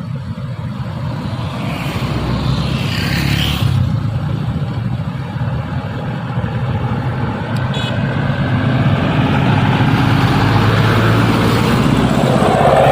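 Hino 500 truck's diesel engine pulling under load up a climb: a steady low drone that grows louder over the last few seconds as the truck comes closer. A brief whoosh rises and falls about three seconds in.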